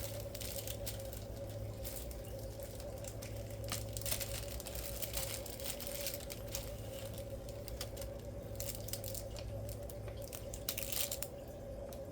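Irregular small plastic clicks, scrapes and rustling as a keyboard's keycaps are handled, with a cluster of clicks near the end, over a steady hum.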